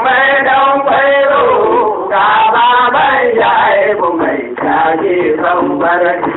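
A man singing a Hausa traditional praise song in a chanting style, the voice sliding between long held notes.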